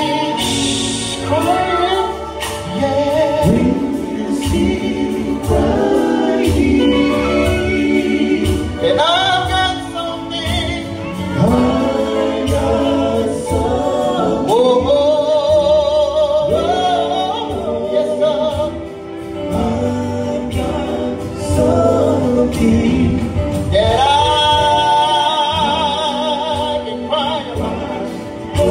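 Male gospel group singing live with instrumental backing, the voices swooping up into long held notes with a wavering vibrato several times.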